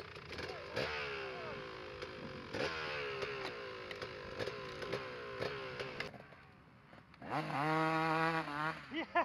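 Motocross bike engines revving over and over, each rev falling away in pitch, with a few sharp clicks. After a short lull about seven seconds in comes a louder, steady engine note lasting just over a second.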